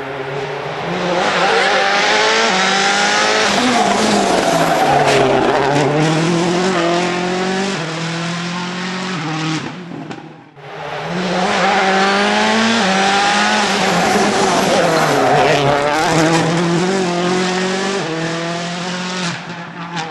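Rally car engines at full throttle, their pitch climbing and dropping again and again through gear changes and lifts. The sound comes in two long runs, broken by a brief dip about halfway through.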